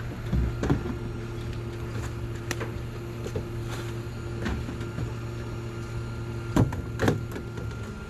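Rear-loader garbage truck engine running steadily while trash cans are emptied into the hopper by hand. The cans knock sharply against the hopper several times, loudest twice near the end.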